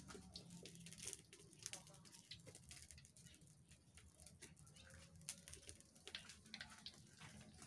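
Near silence: faint scattered crackles and ticks from a wood fire burning in a clay stove under a wok of heating oil.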